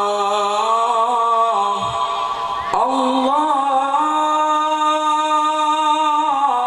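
A man chanting a sholawat into a microphone in long, drawn-out melismatic notes. After a short dip and breath, his voice swoops up about three seconds in to a higher note and holds it for several seconds before falling near the end.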